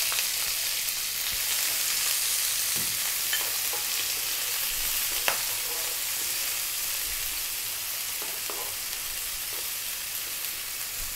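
Chopped red onion sizzling in hot mustard oil with fennel and black mustard seeds, stirred with a wooden spoon: a steady high hiss with a few light clicks.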